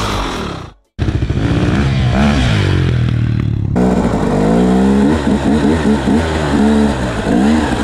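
KTM EXC 250 enduro motorcycle engine revving up and down repeatedly while being ridden, heard from the rider's helmet camera. The sound cuts out completely for a moment just before one second in.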